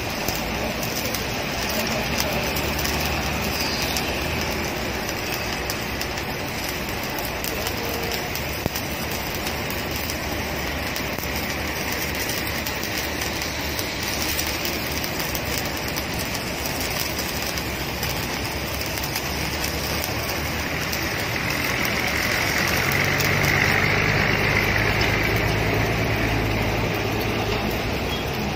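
Stick-welding arc burning steadily as an electrode runs a vertical weld on steel plate. A low engine-like hum sits underneath and grows louder in the last few seconds.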